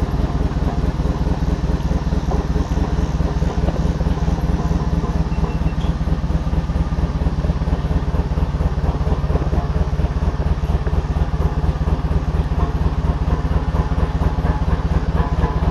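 Engine of the lifting machine carrying the strapped-up racing engine, running steadily at low speed with an even, rapid low pulse throughout.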